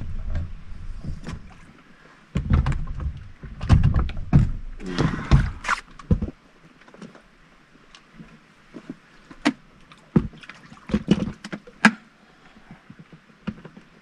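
Irregular knocks, thumps and clatters of a small dinghy and its gear being handled alongside a boat, louder with some rumbling in the first half, then scattered sharp clicks and knocks.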